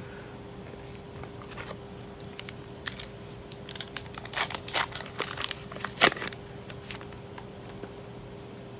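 Trading card booster pack wrapper crinkling and being torn open, a run of crackles, loudest about six seconds in.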